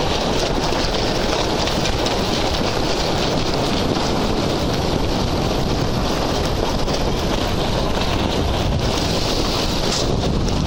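Wind buffeting the microphone: a steady, dense rushing noise.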